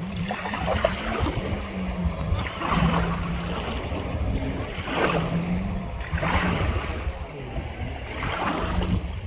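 Jet ski engine droning at a distance, its low hum coming and going, under wind rumbling on the microphone and surges of water-like hiss every couple of seconds.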